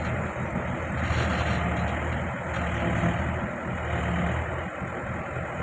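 Backhoe's diesel engine running at a steady low hum, its pitch and level swelling and easing slightly as the machine works.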